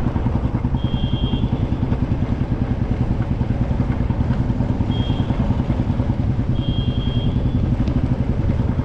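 Royal Enfield Bullet motorcycle's single-cylinder engine running at a steady road speed, with a fast, even beat of exhaust pulses. Three short high beeps come through about one, five and seven seconds in.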